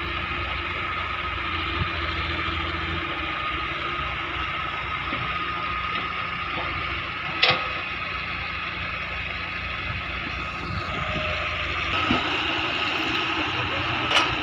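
Heavy machinery diesel engine running steadily with a constant whine, a sharp knock about halfway through and another near the end.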